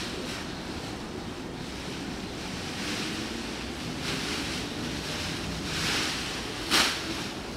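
Steady wind noise on the microphone, with a few short rustles during outdoor garden work; the sharpest and loudest comes near the end.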